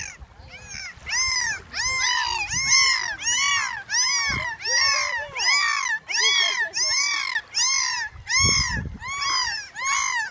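Dolphin calling in air, a long, regular series of rising-then-falling whistling calls, about two a second.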